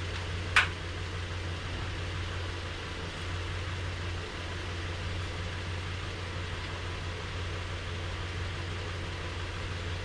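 A Nissan Frontier's 4.0-litre V6 idling steadily with its hood open, a constant low hum. A single sharp click about half a second in.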